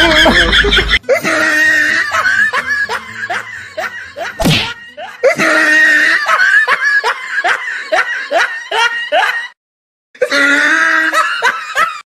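Hearty laughter in rapid repeated bursts, with one short sharp hit about four and a half seconds in. The laughter breaks off briefly twice near the end.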